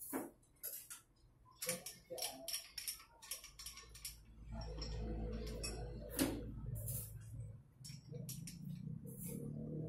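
Small metal clicks and clinks of tooling being handled at a drill press, then a steady low motor hum starts about four and a half seconds in, dips briefly near eight seconds and runs on, with more clicks over it.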